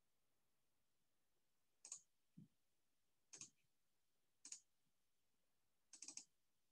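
Faint computer clicks over a quiet room: four clicks a second or so apart, the last a quick cluster of two or three, with a soft low thump just after the first.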